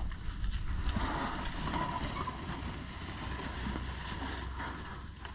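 Wind rumbling on the microphone over the scraping of a wooden-framed mobile pig pen being dragged across dry grass.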